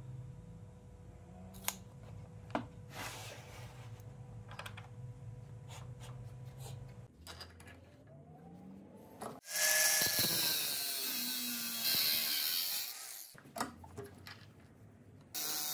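A power tool runs in two short loud bursts, one of about three seconds midway and a shorter one near the end, with a whine that shifts in pitch. Before them come light knocks and clicks of handling over a low hum.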